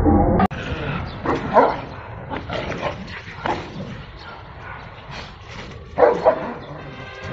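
A large dog barking a few times in short barks, the loudest about a second and a half in and a pair close together about six seconds in.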